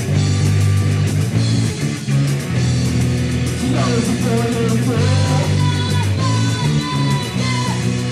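Punk rock band playing live and loud: distorted electric guitars, bass and drums, with a wavering lead line coming in about four seconds in.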